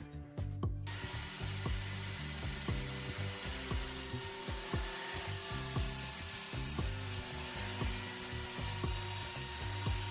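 Steady noise of a tool cutting or sanding wood, starting about a second in, over background music with a steady beat.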